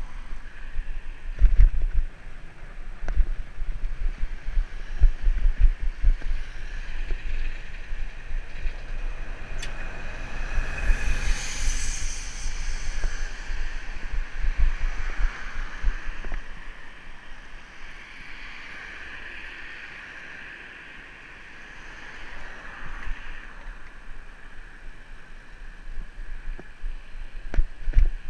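Wind buffeting the microphone of a camera on a moving bicycle, mixed with road traffic noise. A passing vehicle swells and fades about ten to thirteen seconds in.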